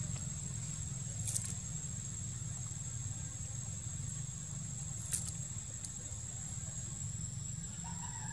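Steady outdoor background: a constant high-pitched insect drone over a low rumble, with two faint crackles about one and a half and five seconds in.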